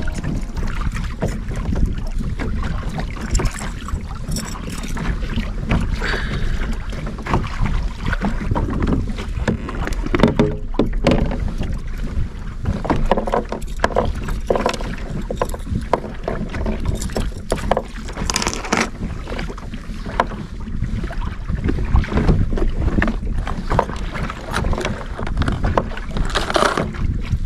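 Wind buffeting the microphone, with water lapping and splashing irregularly against a kayak hull on open lake water.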